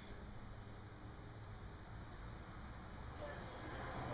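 A cricket chirping steadily, short high chirps about twice a second, over a faint low hum.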